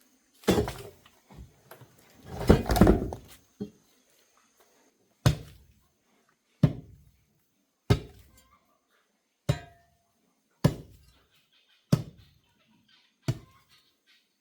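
A digging tool striking the ground in a steady rhythm, one dull thud about every second and a half, after a longer stretch of louder scraping and thudding in the first few seconds.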